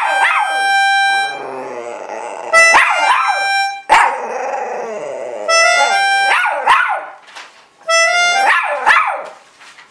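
A poodle howling along to an organ. The organ plays short phrases of quick reedy notes about every two to three seconds, and each time the dog answers with a wavering howl that slides up and down in pitch. The playing and howling die away near the end.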